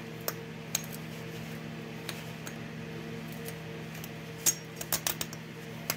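Scattered light clicks and taps from a hand pruning saw being handled, with a small flurry of them a bit after the middle, over a steady low hum.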